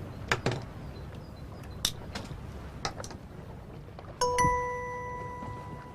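A few soft taps, then a single bright chime note struck about four seconds in, ringing on and slowly fading.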